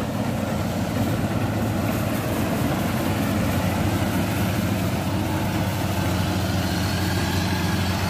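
Gatra GCH-858 combine rice harvester's engine running steadily with an even low hum while the machine works the field.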